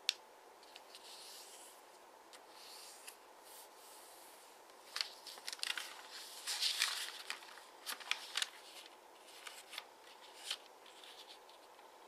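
A sheet of origami paper rustling and crinkling as hands fold it and press along its creases, with scattered sharp paper clicks. The handling is busiest in the middle, when the sheet is turned over and refolded.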